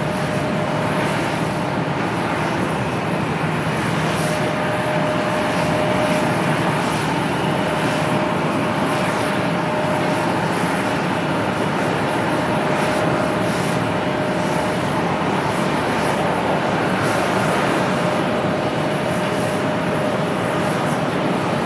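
Jet airliner engines running steadily, an even rushing noise with a faint whine that fades and returns.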